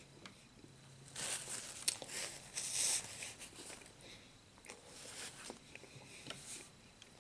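Rustling and handling sounds at a dinner table: about two seconds of scratchy rustling a second in, then fainter rustles and a few light clicks.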